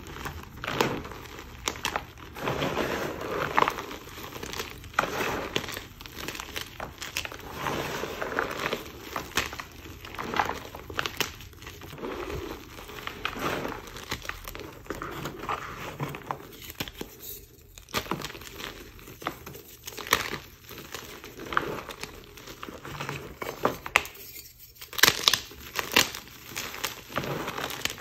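Homemade gym chalk blocks crushed by hand into loose powder: irregular crunching and crumbling with soft powdery squeaks. There are brief lulls, and a burst of sharper crackles comes about 25 seconds in.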